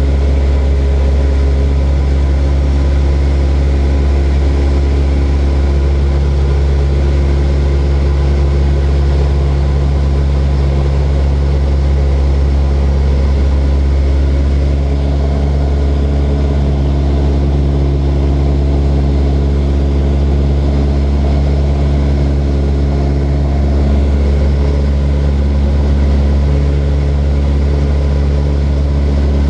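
Steady drone of a small propeller aircraft's engine in flight, a loud deep hum with steady tones above it that shift slightly about halfway through.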